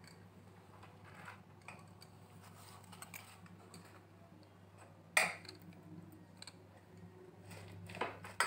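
Chopped vegetables and flour being stirred in a steel bowl: soft rustling and light clicking, with a sharp knock or scrape against the steel about five seconds in and again near the end, over a low steady hum.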